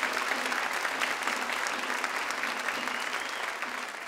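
Audience applauding, a dense clapping that begins to fade near the end.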